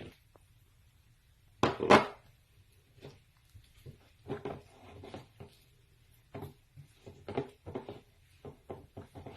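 Kitchen utensils and bowls being handled: a series of short knocks and clatters, the loudest a close pair about two seconds in, then lighter scattered taps.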